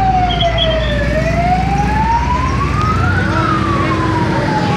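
Fire truck siren wailing loudly in slow sweeps, falling, rising, then falling again in pitch, over a steady low rumble.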